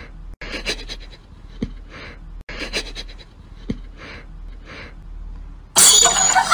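A cat sniffing at a sock-covered foot: short breathy sniffs about once a second. Near the end a sudden much louder, noisy burst of sound cuts in.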